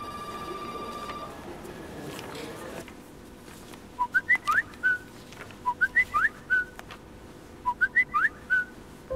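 Mobile phone SMS alert tone, a short whistle-like phrase of a few quick gliding notes, sounding three times about two seconds apart from about four seconds in as text messages arrive one after another. A steady beep sounds during the first second.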